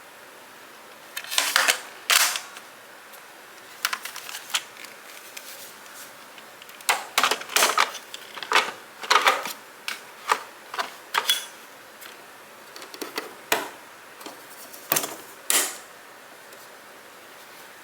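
Irregular sharp clicks and clacks of hard household objects being handled and set down: a couple about a second in, a denser run in the middle, and two more near the end.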